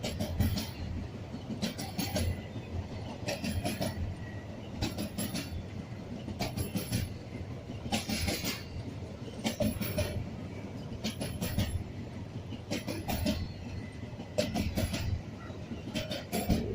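Railway cars rolling past, their wheels clicking over a rail joint in clusters of clicks about every one and a half seconds, over a steady low rumble.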